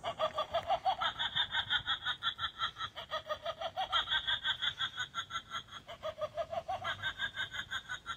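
Animated witch prop playing a recorded witch's cackle: a long, rapid ha-ha-ha laugh of about six bursts a second, whose pitch dips and rises a few times. It stops shortly after the end.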